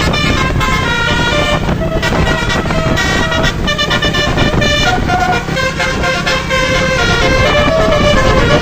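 Indonesian bus 'telolet' air horn playing a quick melody of changing notes, over the bus's engine and road rumble.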